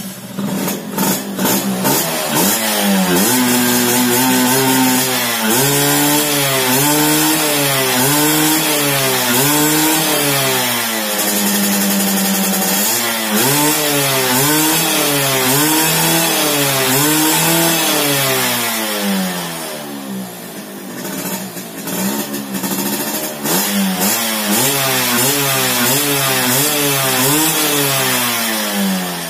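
Yamaha F1ZR's two-stroke single-cylinder engine being revved by hand in repeated throttle blips, the pitch rising and falling about once a second, while its race carburettor is tested. It settles lower for a couple of seconds around twenty seconds in, then revs again.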